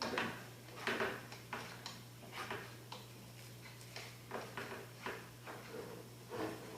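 Kitchen clatter while cooking eggs: a series of light, irregular clicks and knocks, like a utensil tapping and scraping in a pan, over a steady low hum.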